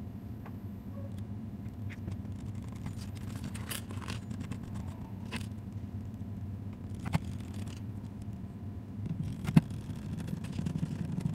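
Small sharp clicks and light scraping of plastic and metal as a laptop's bottom cover and screws are fitted back on, with about four distinct clicks, the loudest near the end, over a steady low hum.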